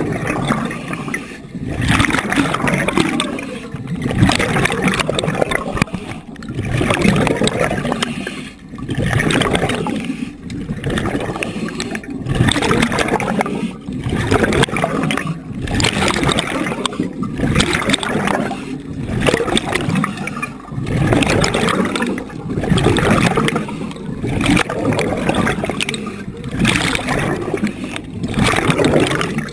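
Water rushing and gurgling around an underwater camera as a diver swims, swelling and dropping in a regular pulse about every two seconds.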